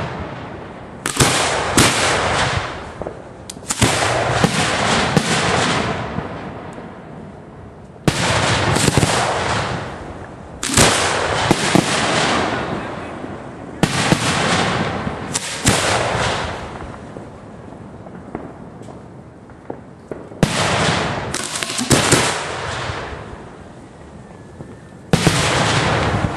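Aerial fireworks being fired from mortar racks at close range: sharp bangs, some single and some in quick clusters of two to five, each followed by a noisy tail that dies away over a second or two, with short lulls between volleys.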